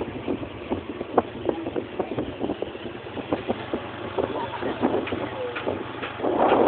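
A vehicle's engine runs steadily under irregular rattling knocks as it drives along a road. A louder rush of noise comes near the end.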